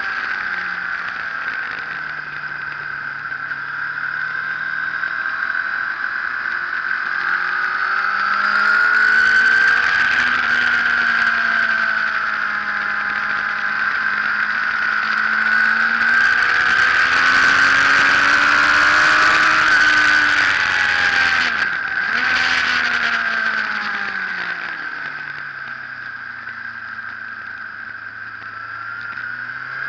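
Sport motorcycle's engine heard from an onboard camera at track speed. Its note climbs under acceleration from about a quarter of the way in and stays high through the middle. After a brief break about two-thirds through, it dies down as the bike slows and leans into a corner, then rises again at the end.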